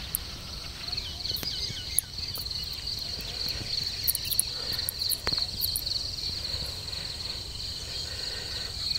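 Insects trilling in a steady, fast-pulsing chorus, with a few faint ticks and one sharp knock about five seconds in.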